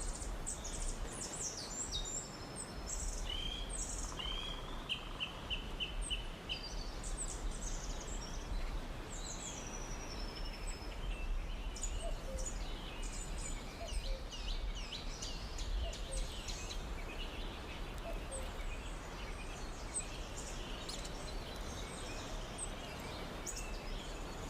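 Rainforest ambience with several small birds chirping and calling, including a run of quick repeated notes a few seconds in, over a steady background hiss.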